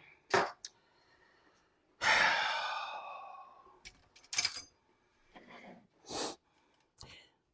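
Butter dropped into a very hot stainless steel pan, sizzling loudly at once and dying away over about a second and a half. A few short clatters come before and after it.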